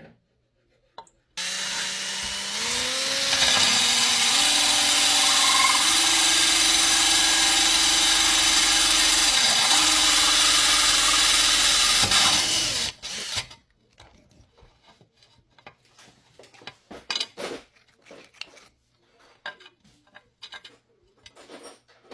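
Electric drill running for about eleven seconds, its motor pitch stepping up and dipping as it works, then stopping; light clicks and handling knocks follow.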